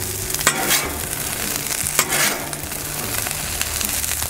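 Hash browns and sausage sizzling on a hot Blackstone flat-top griddle, with a metal spatula scraping across the steel plate a few times as the potatoes are turned, the clearest scrapes about half a second in and about two seconds in.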